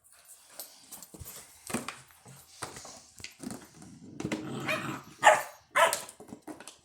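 Labrador puppies play-fighting: scattered crackling and knocks, a low rough growl in the middle, then two sharp barks in quick succession near the end.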